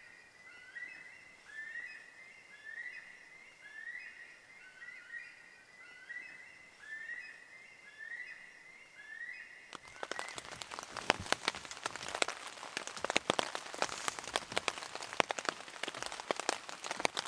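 A bird gives a short rising call, repeated about once a second. About ten seconds in this gives way abruptly to rain falling on a surface, a dense, loud spatter of drops.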